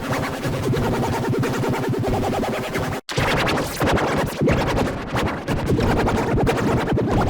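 A nursery-rhyme song put through heavy glitch audio effects: distorted, rapidly stuttering, scratch-like music with no clear words. It cuts out for an instant about three seconds in.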